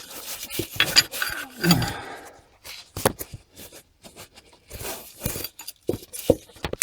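Scattered metal clicks, clinks and scrapes of a spanner and socket being worked on a Land Rover gearbox's reverse light switch, with a brief voice sound about two seconds in.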